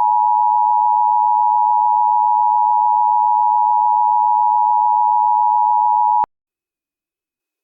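Emergency Alert System attention tone: a loud, steady alert tone just under 1 kHz, held without change, that cuts off abruptly about six seconds in.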